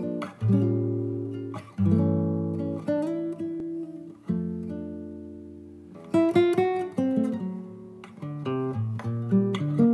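Solo nylon-string classical guitar playing a Latin jazz piece: a few strummed chords left to ring and die away, then, from about six seconds in, a quick run of plucked single notes.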